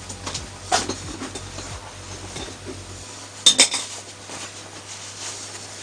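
Small metal engine parts clinking as they are handled during washing: a few light clinks, then two sharp ringing clinks in quick succession about three and a half seconds in.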